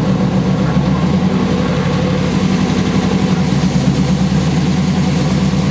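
Chevrolet LT1 V8 engine of a 4th-generation Camaro Z28 running steadily in gear, with the car up on jack stands, while the freshly rebuilt 4L60E automatic transmission is tested through its gears.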